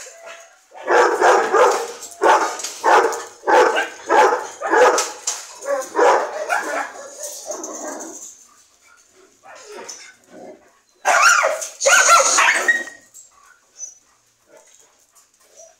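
Dogs barking: a run of barks, about one to two a second, for the first half, then after a few seconds' pause another loud burst of barking.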